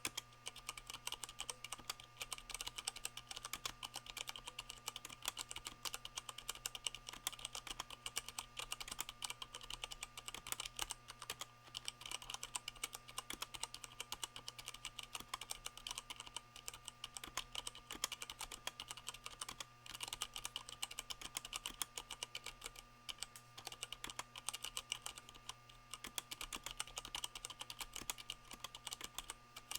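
Continuous fast typing on a mechanical keyboard with Cherry MX Brown switches fitted with rubber O-rings, the O-rings damping the keys as they bottom out. The keystrokes come in a dense, irregular stream of clicks.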